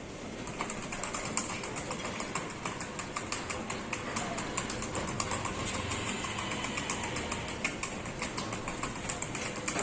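Rotary bottle unscrambler turntable running, with bottles clicking and knocking against each other and the guides in a quick, irregular patter over a steady machine hum.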